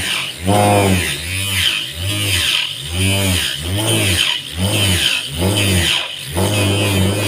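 Small electric drill running under load as a homemade hole saw cuts into a block of wood. The motor's pitch rises and falls about every half second, over a raspy cutting noise.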